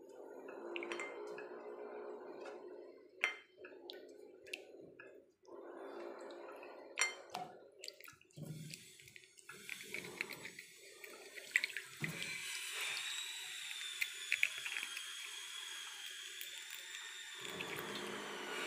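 Hands washing dried Chinese yam slices and red dates in a stainless steel basin of water: sloshing and swishing, broken by sharp clicks of the pieces and fingers against the metal. From about nine seconds in, a faint high wavering tone runs underneath.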